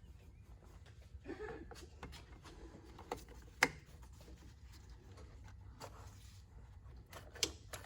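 Scattered light clicks and knocks of hand tools and parts being handled in an engine bay, with one sharp click about three and a half seconds in.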